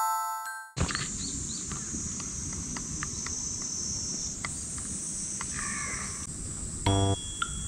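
Summer outdoor ambience: a steady high insect drone with scattered short bird chirps, and a crow cawing once a little after the middle. Music plays briefly at the start and starts again near the end.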